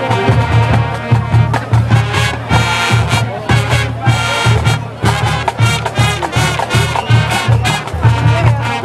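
Marching band playing: brass instruments over a steady, heavy drum beat.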